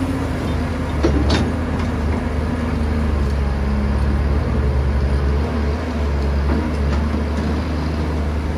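Caterpillar 320B excavator's diesel engine running steadily under load as the bucket digs into a pile of dirt. There are two sharp knocks about a second in.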